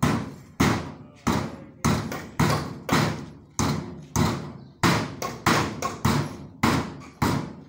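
Hammer driving nails into a timber frame faced with corrugated metal sheeting: a steady run of sharp blows, a little under two a second.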